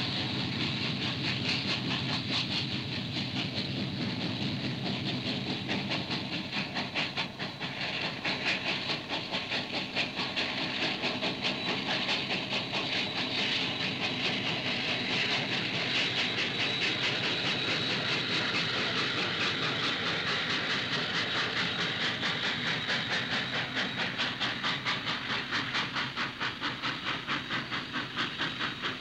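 Steam train passing at speed: steam locomotive exhaust beating in a steady rhythm with hissing steam and the running noise of the train.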